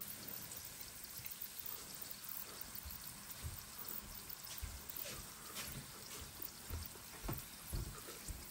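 A steady hiss like rain or running water, with light clicks of chopsticks against a ceramic bowl and a few soft low thumps.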